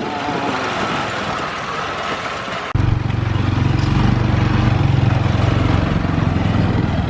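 A taxi's small engine running. About three seconds in, it jumps suddenly to a louder, steady low hum.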